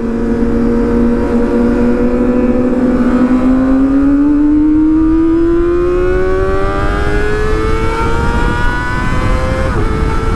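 Kawasaki inline-four sport motorcycle engine under steady acceleration, its pitch rising evenly for about nine seconds, then dipping abruptly near the end, over a low rumble of road and wind noise.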